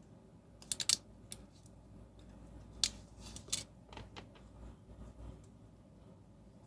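Light clicks and taps from a tube of two-part Araldite epoxy and small tools being handled on a work surface. There is a quick cluster of clicks about a second in, then a few single ticks spread over the next few seconds.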